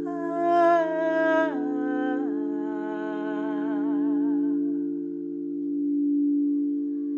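Crystal singing bowls hold a steady chord of several tones. Over them a wordless singing voice holds a note, steps down in pitch twice, then wavers with vibrato and fades out about five seconds in.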